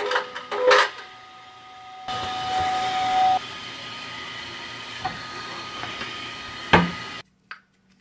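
Bambu Lab 3D printer running, with fans hissing and a few mechanical clicks, then a steady whine for about a second and a half. A sharp knock comes near the end before the sound cuts off.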